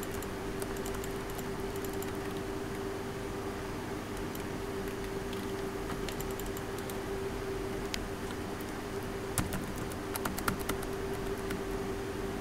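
Steady background hum with a constant tone, over scattered light clicks of a computer keyboard and mouse, with a quick run of clicks about nine and a half to eleven seconds in.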